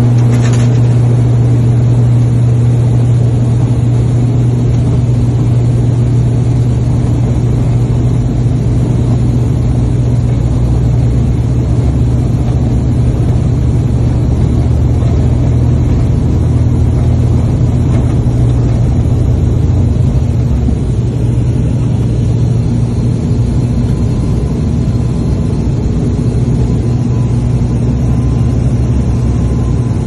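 Turboprop airliner's engine and six-bladed propeller at takeoff power, heard from inside the cabin. It is a loud, steady drone with a strong low hum through the takeoff roll and into the climb.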